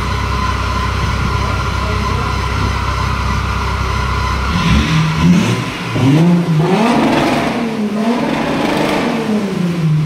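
Tuned Audi A5 3.0 TDI V6 diesel with a Milltek exhaust revving: after a steady low rumble, from about halfway in the engine note climbs and drops several times in repeated rev rises.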